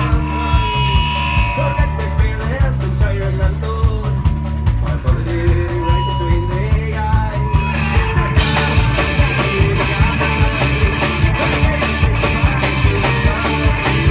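A folk-punk band playing live through a PA with no singing: a bowed fiddle melody over driving bass, drums and guitars. About eight seconds in, crashing cymbals come in and the full band plays on more densely.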